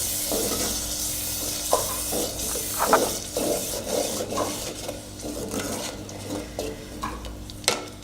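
A spoon stirring and scraping a thick paste of ground medicinal leaves as it sautés in oil in a clay pot, with a soft sizzle that fades away; a sharp knock of the spoon near the end.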